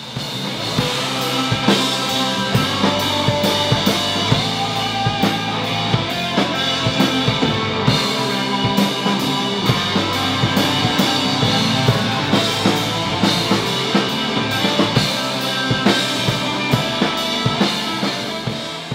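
Live rock band playing: a drum kit keeping a steady beat under electric guitars and bass guitar.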